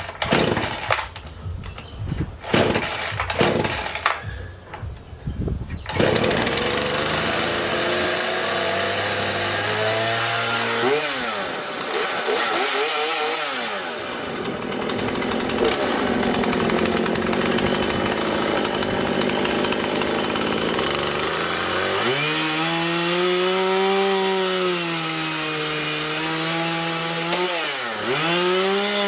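Husqvarna 120 Mark II two-stroke X-Torq chainsaw engine: sputtering and catching in short bursts for the first few seconds, then running steadily at high revs. Its pitch sags and recovers several times as the chain cuts into wood under load.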